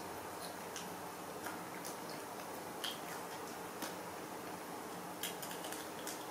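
Scattered small clicks and ticks at uneven intervals over a steady low hiss, from macaques picking at and eating bananas off a plate. The loudest clicks come a little under three seconds in and just after five seconds.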